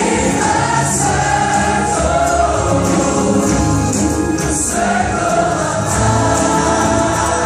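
A large choir of children and young performers singing together with instrumental accompaniment, many voices holding long notes.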